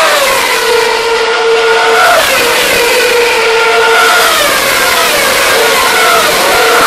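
Open-wheel race car engines screaming past one after another at high revs, each note dropping in pitch as the car goes by, over a steady engine tone. Loud throughout.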